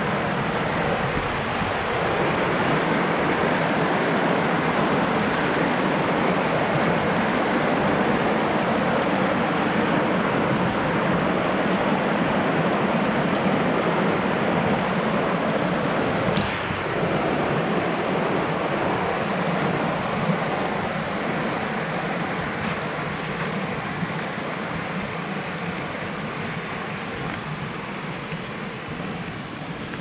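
Small creek cascade rushing over rocks in a steady whitewater noise, growing fainter near the end.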